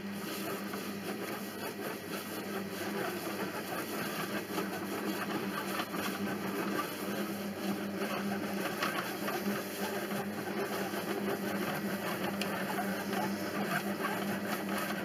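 Monsieur Cuisine Connect kitchen robot running steadily on speed 3, warming to 37 °C as it stirs the bread ingredients to activate fresh yeast, with a constant low hum. The unit shakes on the worktop because its suction feet won't hold.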